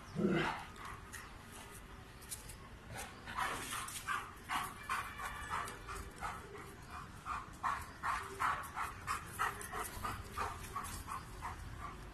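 Doberman barking at a monkey while guarding. One loud bark comes right at the start, then from about three seconds in a long run of short, quick barks, about three a second.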